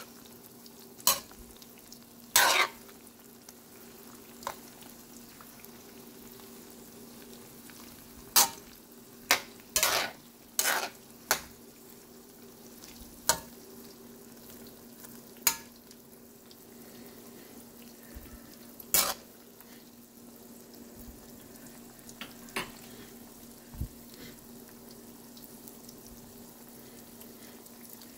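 Fish balls and kikiam frying in oil in a metal wok, a faint sizzle under a steady low hum. A metal spatula scrapes and clanks against the wok about a dozen times at uneven intervals as the pieces are turned.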